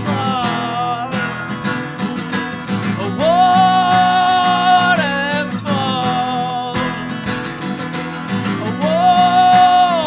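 Acoustic guitar strummed steadily while a man sings, holding long notes twice.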